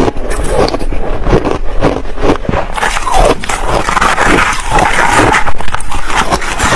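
Close-miked crunching of crushed ice being chewed: a dense, irregular run of sharp cracks and crunches. Around the middle a metal spoon scrapes and digs through the crushed ice in a plastic tub.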